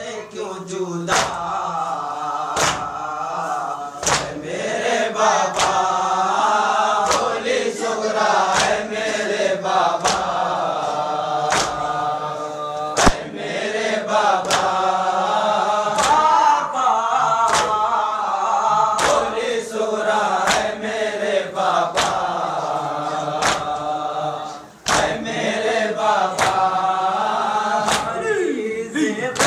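A group of voices chanting a Muharram lament (nauha) in unison. Sharp slaps keep time about once every second and a quarter, and the chant breaks briefly about 25 seconds in.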